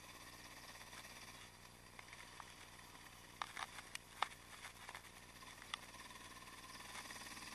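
Yamaha XT660X single-cylinder engine running faintly at a gentle cruise, heard from a handlebar-mounted camera, with a few sharp clicks about halfway through.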